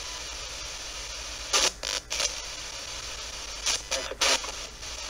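Spirit box radio scanning through stations: a steady static hiss broken by short, loud bursts of radio noise, a cluster about one and a half to two seconds in and another about four seconds in.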